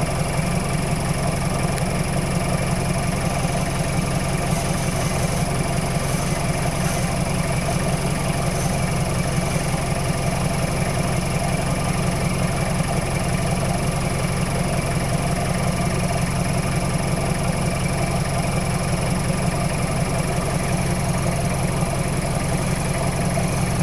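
Off-road vehicle's engine idling steadily.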